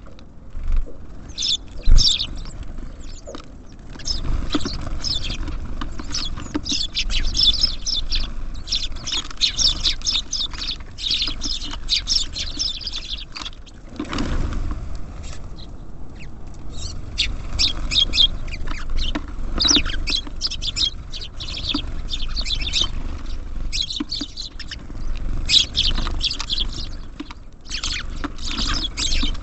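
Small songbirds at a feeder chirping and twittering, many short calls in quick succession, thinning briefly around the middle, with a low rumble underneath. A single sharp knock about two seconds in.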